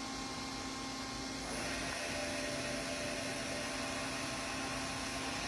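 Hurco CNC machining center running, a steady mechanical whir with several steady tones. About a second and a half in it gets slightly louder and a high whine joins.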